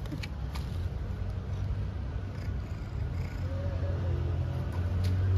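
Tabby-and-white street cat purring while being stroked by hand, the purr growing louder near the end, with a short soft meow about three and a half seconds in.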